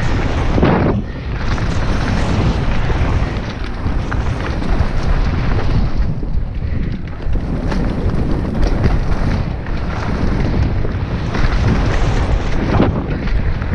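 Wind buffeting a bike-mounted action camera's microphone at speed, over the rumble and rattle of a mountain bike's tyres and frame on a rough dirt trail. There is a heavier jolt about a second in and another near the end.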